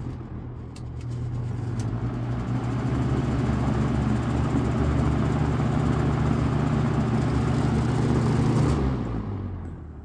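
Toastmaster 20-inch box fan running on high speed: a steady motor hum with the plastic grills rattling and buzzing, a noise that comes from the grills, not the motor. It builds up to speed over the first couple of seconds, and near the end the hum fades and drops in pitch as the fan slows.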